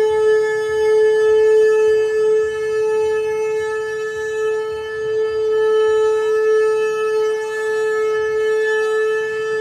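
Shofar blown in one long, steady blast: a single held note with bright overtones that does not waver or break.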